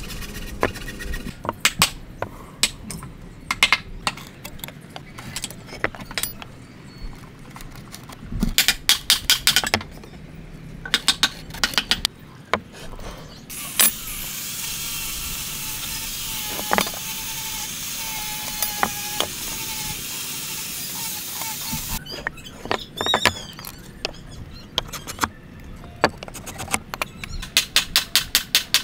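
Pine timber blocks set down and knocked together on a wooden workbench, with scattered sharp knocks and clicks, while a metal square is laid against the wood to mark out a table corner joint. A steady hiss runs for several seconds in the middle, and near the end a pen scratches quick, repeated strokes marking lines on the timber.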